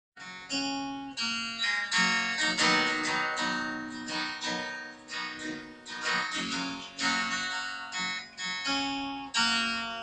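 Acoustic guitar played solo as a song intro: strummed and plucked chords, each stroke ringing and fading before the next, in a steady rhythm.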